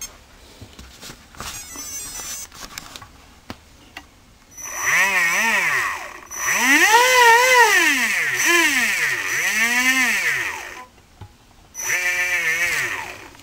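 Tekin Pro 4 4600kV brushless RC motor, freshly rebuilt after seizing, with its loose rotor magnets re-glued, running sensored under throttle. After a quiet start its whine climbs in pitch and falls back about five times, the last a short burst near the end. The repaired motor is spinning up and down without trouble.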